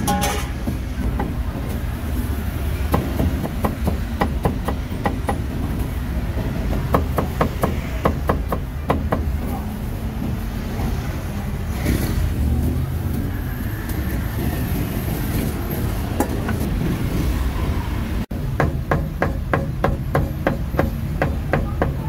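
Cleaver chopping roast meat on a chopping board: runs of quick, even strokes about three to four a second, over a steady low rumble of street noise.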